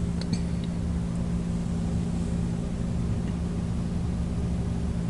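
Steady low machine hum with a constant pitch, with two or three faint clicks about a third of a second in.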